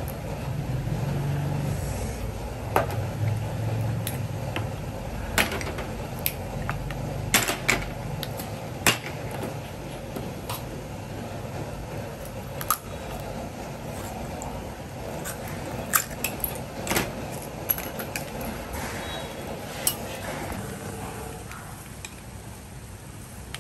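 Shellfish shells clicking and clacking at irregular intervals as they are handled, opened with kitchen scissors and set down on a plastic cutting board. A low hum runs under the first few seconds.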